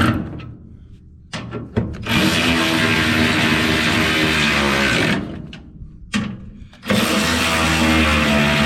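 Steady drone of a running motor, with a low hum and overtones. It cuts out abruptly twice, for a second or two each time, with a few clicks in the gaps.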